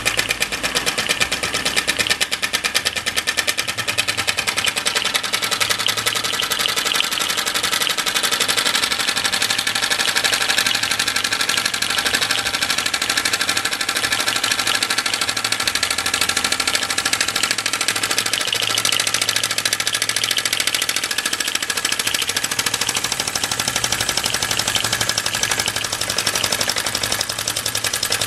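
Early flat-base Mamod SE1 toy steam engine running fast under steam: its oscillating brass cylinder gives off a rapid, even chuffing that runs together into a steady mechanical rattle.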